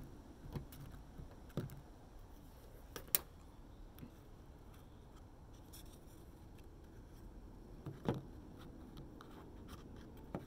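Faint scattered clicks and taps of a paintbrush and small plastic paint pots being handled on a tabletop. The sharpest click comes about three seconds in and another just after eight seconds.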